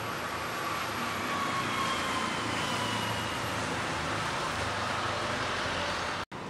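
Steady city street traffic noise, with a faint whine of a passing vehicle that slowly falls in pitch over the first three seconds. The sound drops out for an instant near the end.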